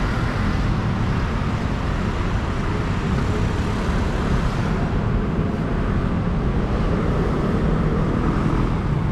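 Steady road traffic noise: a continuous rumble of passing cars with no single event standing out.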